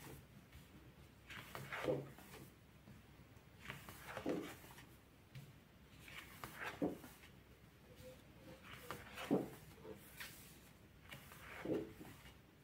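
Sheets of a pad of decorative craft paper being turned one by one, a short paper rustle and flap about every two and a half seconds, five in all.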